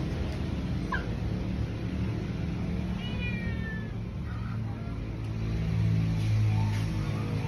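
A pet animal's short high cry about a second in, then a longer falling cry about three seconds in, over a steady low hum.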